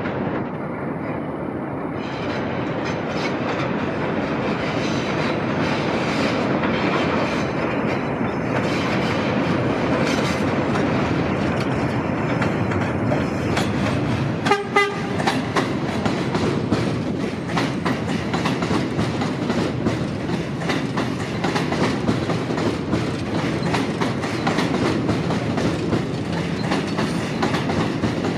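R46 subway train running on a steel elevated structure, approaching and pulling into the station with a steady rumble. About halfway through it sounds its horn once, briefly. After that the wheels clack over the rail joints as the cars roll past.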